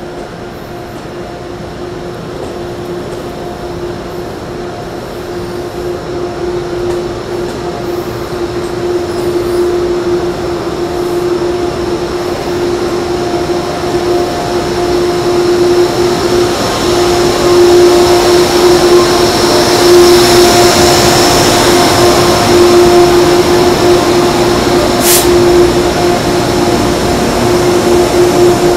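Train locomotive standing at a station platform, a steady mechanical drone with a held humming tone that grows louder through the first two-thirds. One sharp click comes near the end.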